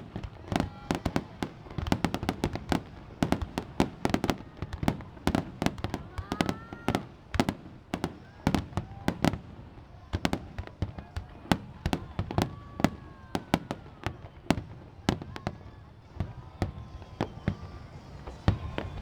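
Aerial fireworks bursting in rapid succession: many sharp bangs, several a second throughout, with high whistles arcing up and down in pitch between them.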